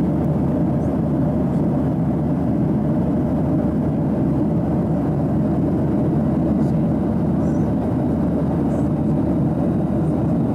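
Steady cabin noise of a Boeing 737-800 jetliner at cruise altitude: an even, low rushing drone of engines and airflow that does not change.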